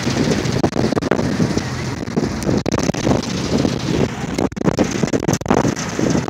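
Wind buffeting the phone's microphone on the open deck of a moving boat, in irregular gusts, over a low steady drone from the boat's engine.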